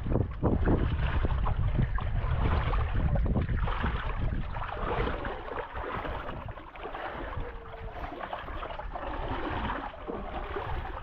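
Wind buffeting the camera microphone in a steady low rumble, with irregular scuffing and crackling from a hiker moving. It eases a little about two-thirds of the way through.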